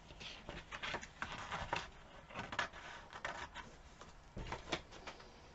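Paper calendar pages rustling and crinkling as they are handled, a string of short, irregular, faint crackles.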